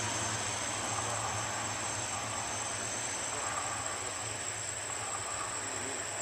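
Airliner jet noise slowly fading into the distance, over a steady high-pitched buzz of insects.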